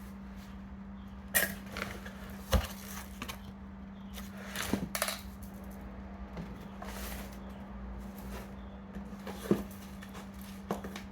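Handling of shipping packaging during unboxing: scattered knocks, taps and plastic crinkles as the box and its air-pillow packing are moved about, over a steady low hum.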